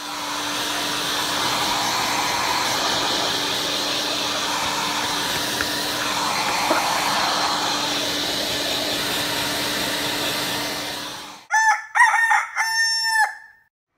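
A steady blowing noise with a low hum runs for about eleven seconds and cuts off suddenly. A rooster then crows once, a call broken into several syllables, the loudest sound here.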